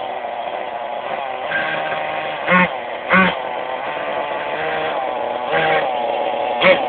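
Kyosho DST nitro RC car's small glow engine running at a steady high idle, with a few short sharp blips of throttle: the first two about a second apart, then two more near the end.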